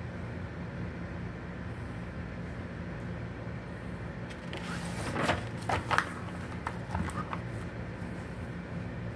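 Glossy magazine page turned by hand: a short run of crisp paper rustles and flaps about halfway through, over a steady low hum.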